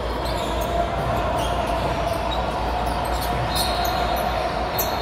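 Basketball bouncing on a hardwood gym floor in repeated thuds during play, over a steady hall din. A brief high sneaker squeak comes near the end.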